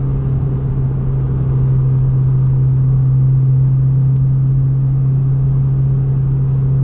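A Honda Fit's four-cylinder engine drones steadily at highway cruise inside the cabin, with road rumble underneath. It is turning higher revs than before because shorter 4.928 final drive gears have been fitted.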